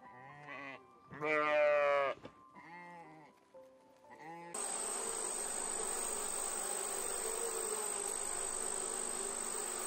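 Sheep bleating: a few quavering bleats, the loudest about a second in. At about four and a half seconds a steady bee buzz takes over and holds.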